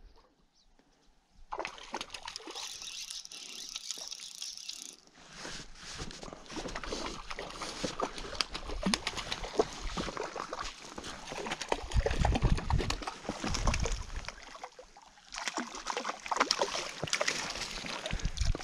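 A hooked trout splashing at the surface of shallow lake water as it is played in close and netted. The splashing starts about a second and a half in and goes on in runs, easing briefly twice.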